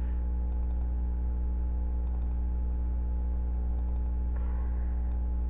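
Faint computer mouse clicks in three small clusters about a second and a half apart, over a steady low electrical hum.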